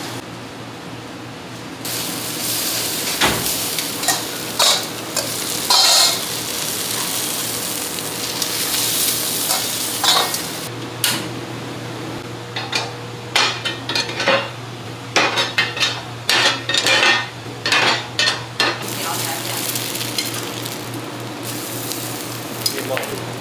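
Food sizzling and frying on hot cast-iron sizzle plates, with sharp clatters of steel tongs and iron plates knocking together, thickest around the middle. A low steady hum runs underneath.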